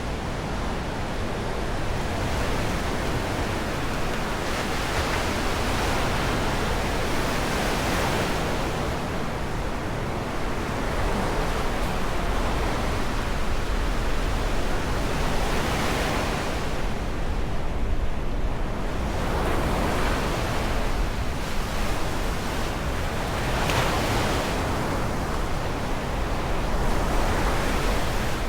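Sea waves breaking and washing ashore: a steady roar of surf that swells every few seconds as each wave breaks.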